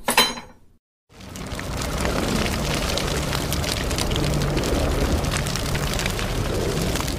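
Logo-intro fire sound effect: a sharp hit that dies away within a second, a brief silence, then a swelling, steady, deep rumble of flames with dense crackling.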